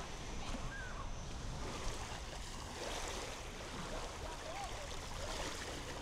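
Small sea waves washing steadily onto a sandy beach, with a low rumble and a few faint distant voices.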